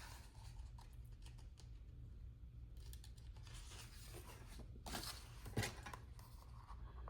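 Faint rustling and small clicks of paper planner stickers being peeled from their backing sheet and handled, with two brief louder crackles about five seconds in, over a steady low hum.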